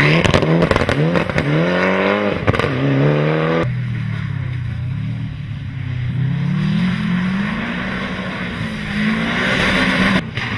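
Rally car engines at full effort going past. The first, a red Mitsubishi Lancer Evolution, revs hard through quick gear changes, its note climbing and dropping in steps. A few seconds in, it cuts to a second rally car accelerating with a lower, steadier engine note.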